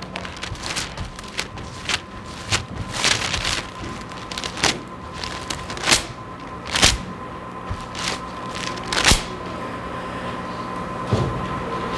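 Thin Bible pages being turned and flicked close to a microphone: irregular crisp rustles and snaps, several of them sharp, over a steady electrical hum.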